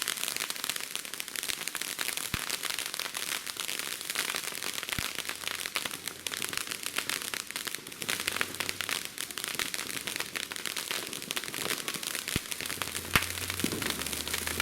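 Consumer ground firework, a crackling fountain, giving off a dense, rapid crackle that keeps up without a break.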